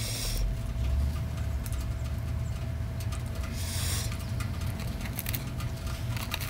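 A homemade bread roll is torn by hand and eaten: a brief rustle of tearing crust at the start, another rustle a little before the middle, and small soft chewing clicks, over a steady low hum.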